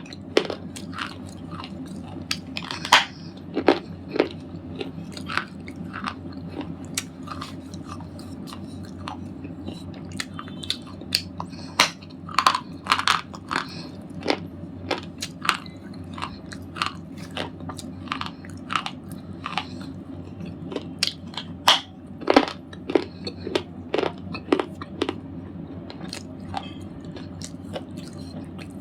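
Red slate ball crunching and crumbling, with irregular sharp cracks several times a second.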